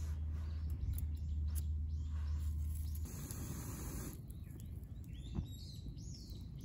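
Outdoor ambience with birds chirping, a low rumble that stops about three seconds in, and a few light clicks as wood sticks are fed into a small wood-burning stove with metal tongs.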